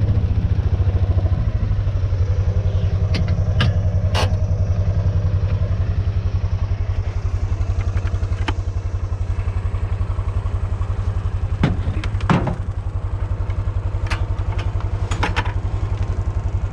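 Kawasaki Mule 610 utility vehicle's single-cylinder engine idling steadily with an even, fast low pulse. A few sharp knocks and clicks sound over it, two of them close together just past the middle.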